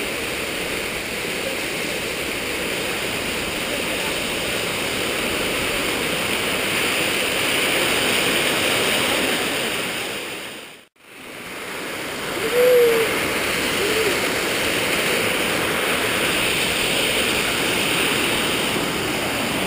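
Waterfall and mountain stream rushing steadily. Partway through, the sound fades out to nothing for a moment and comes back, and just after it a short call rises and falls once, with a shorter one about a second later.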